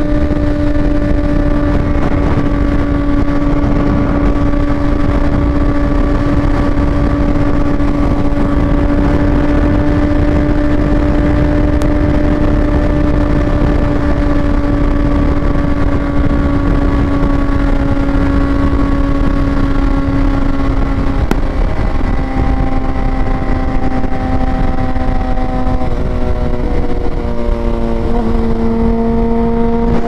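Sportbike engine running at a steady cruise, its pitch slowly sinking, then dropping in a few steps near the end, with heavy wind rushing over the microphone.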